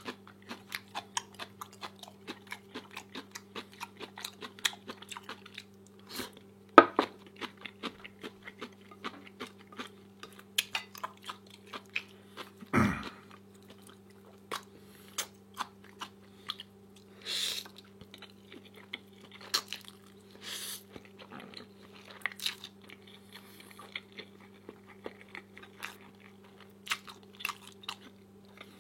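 A person chewing crunchy food close to the microphone: a steady run of crisp crunches and mouth clicks, with a few louder bites.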